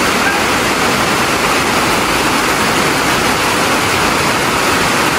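Heavy rainstorm pouring down, heard from inside a small wooden cabin as a loud, steady, dense hiss.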